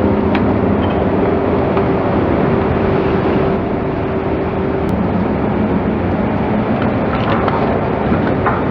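Heavy equipment's diesel engine running steadily and loud, its note changing about halfway through.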